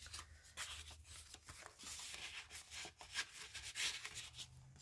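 Paper and card rustling and sliding as paper tags are drawn out of a paper pocket in a handmade journal and its pages are handled, with a series of short, soft scrapes.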